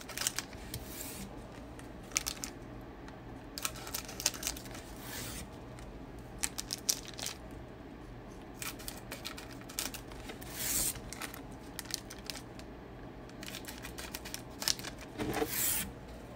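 Scissors snipping open foil trading card packs, with the foil wrappers crinkling, in scattered short snips and rustles.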